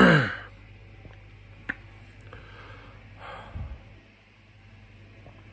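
A person's heavy breathing while their mouth and throat burn from a superhot chili pepper: a loud gasping exhale that falls in pitch at the start, a sharp click about a second and a half later, and a softer breathy exhale about three seconds in.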